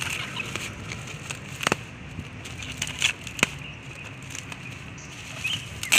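Bubble wrap around a parcel crinkling and crackling as fingers pick at and peel the tape holding it, with a few sharp clicks.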